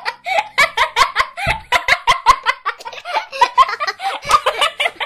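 Children laughing hard: rapid strings of high-pitched giggles, several a second, one after another.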